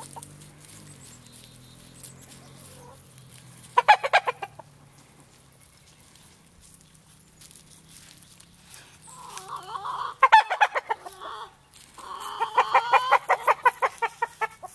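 Chickens clucking: a short quick run of clucks about four seconds in, then longer, louder runs of rapid clucking in the second half, ending in an even series of about six clucks a second.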